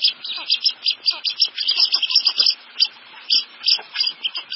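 Blue-winged teal calling: a rapid, dense chatter of short, high-pitched peeps and squeaks, several a second.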